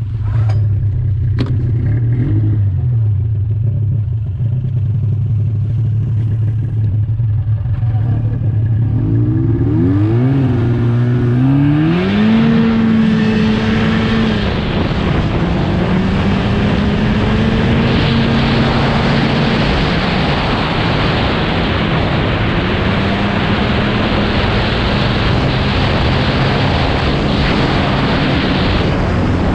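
Snowmobile engine idling steadily, then about ten seconds in revving up and pulling away, running on at a steady higher pitch under a loud rushing noise as the sled travels along the trail. A few sharp clicks sound in the first two seconds.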